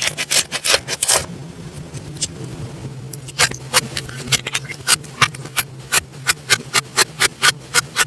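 Slime being squeezed and pressed by hand, giving off sharp clicking pops: a quick flurry, a short pause, then about three pops a second.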